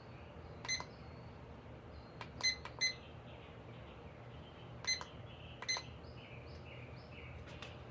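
A gloved hand rubbing a finish coat across a smooth epoxy tabletop, squeaking sharply about five times, with softer rubbing sounds near the end, over a faint steady low hum.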